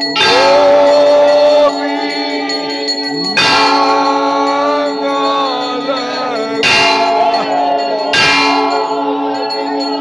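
Hindu temple bells ringing in a steady clangour for the aarti, with voices singing over them. Louder strokes stand out at the start and three more times, roughly every one and a half to three seconds.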